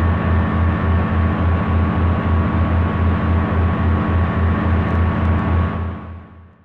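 Steady mechanical drone like a running engine, with a low throb pulsing about four or five times a second and a faint steady whine above, fading out near the end.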